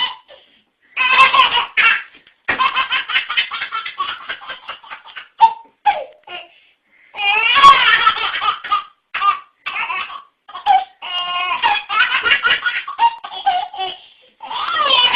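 A baby laughing in repeated bursts, with short pauses between them.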